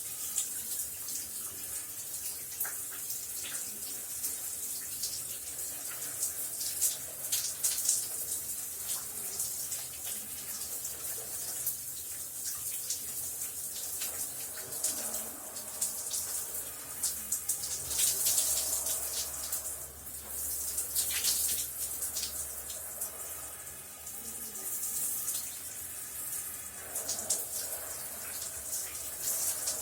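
Shower running: a steady hiss of water spray with many small spatters, swelling a little now and then, as around 18 seconds in.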